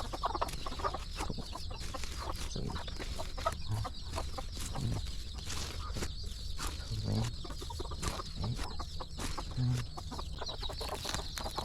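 A flock of chickens clucking, with many short clicks and scratches throughout.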